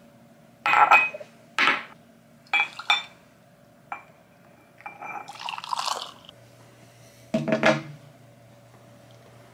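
Ceramic mugs and a pour-over dripper clinking and knocking on a stone countertop, three clusters of clatter in the first three seconds. About five seconds in, hot water is poured from a gooseneck kettle into the ceramic dripper for about a second and a half, then near the end comes one more loud clatter of crockery set down.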